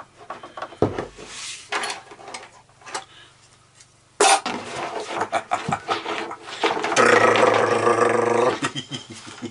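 Clicks and knocks as the blade is locked into a Bosch PSA 700 E reciprocating saw and the saw is handled. About 7 s in, the saw's motor runs briefly for about a second and a half with a steady buzz, a short trigger test with the wood blade fitted.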